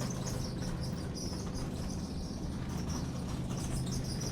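Grocery-store ambience: a steady low hum with rapid, repeated high-pitched chirping over it.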